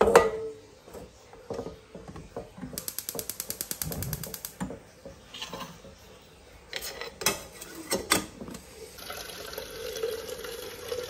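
Kitchen handling sounds: a sharp knock at the start, then a fast run of even ticking for about two seconds, a few more sharp knocks, and water pouring steadily into a plastic drinking bottle over the last couple of seconds.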